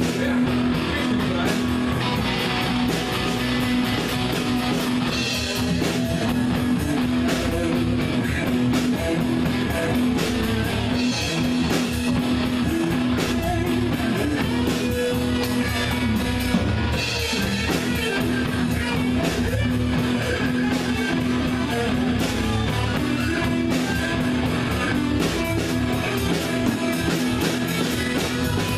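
Live rock band playing electric guitars over a drum kit with a steady beat.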